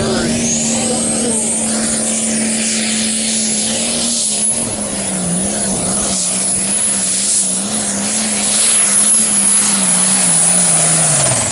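International 1466 pulling tractor running at full throttle down the track under sled load, with a very high turbo whistle that climbs in the first second and then holds. About halfway the engine note sags and wavers as it bogs under the load. Just before the end the throttle is cut, and the engine and whistle both fall away.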